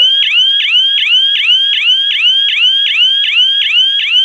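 GSM security alarm system's siren going off: a loud electronic siren repeating a fast sweeping whoop, about three a second.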